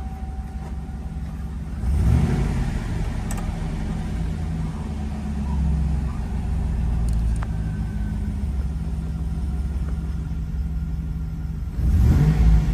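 2005 Chevrolet SSR's 6.0-litre LS2 V8 starting from cold: it catches about two seconds in and flares up in revs. It then settles into a steady fast idle, with a short rise in revs near the end.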